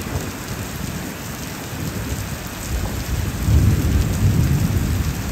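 Heavy rain pouring down steadily, with a deep rumble swelling about three and a half seconds in.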